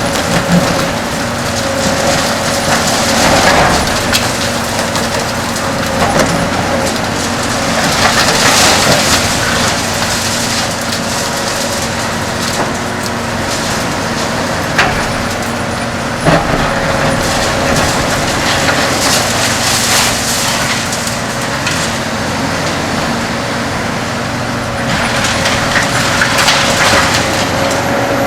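Kobelco SK 500LC-10 excavator's six-cylinder Hino diesel and hydraulics running steadily, while its Verachtert VHC 60 concrete shear crushes concrete in repeated crunching, cracking bursts. There are two sharp cracks about halfway through.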